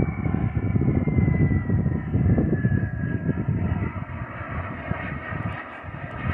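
Harlock-RC Viper 250 model jet flying past, its high engine whine falling slowly in pitch as it goes by, over a heavy, gusty rumble of wind on the microphone.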